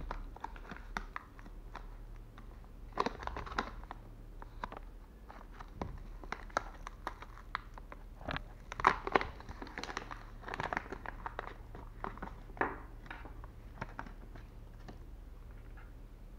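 Plastic packaging pouch crinkling and crackling as it is handled and pulled open by hand, in irregular rustling bursts that are loudest about 3, 9 and 11 seconds in.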